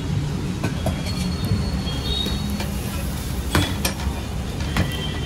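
A metal spatula clinks and scrapes against an iron tawa as a thalipith is lifted and turned, with a few sharp clicks, the loudest about three and a half seconds in. A steady low rumble of street traffic runs underneath.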